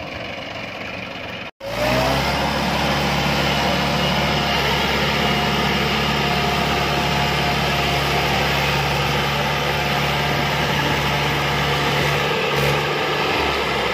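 Diesel tractor engines working hard under load as a stuck Mahindra 575 DI is pulled through deep mud. The sound drops out briefly about a second and a half in. After that, a close, steady engine drone takes over, rising in pitch briefly at first.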